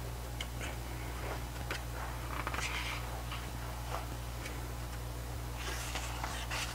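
Pages of a photobook being opened and turned by hand: light scattered ticks and soft paper rustles, with a longer rustle of sliding paper near the end, over a steady low hum.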